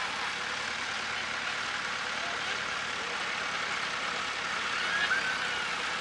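Massey Ferguson tractor running steadily under load as it pulls a plough through stubble.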